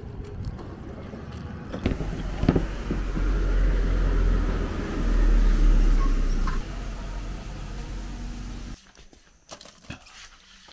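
Low rumble of road traffic, loudest around the middle. It cuts off suddenly near the end, leaving a quieter stretch with a few light knocks.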